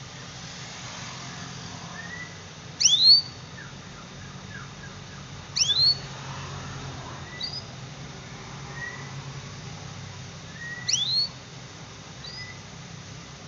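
Canary giving sharp, steeply rising 'cuit' calls: three loud ones, about three, six and eleven seconds in, with softer short chirps between them. A faint steady low hum lies underneath.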